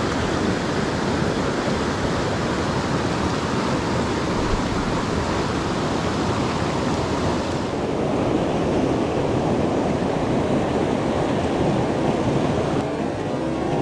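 Steady rushing of a fast mountain stream running over rocks in whitewater, close to the microphone. Its hiss dulls a little about eight seconds in and changes again near the end.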